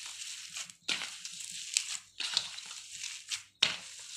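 Boiled potato mash with spices being squeezed and kneaded by hand in a steel plate: a run of squishing, crushing strokes with short breaks between them.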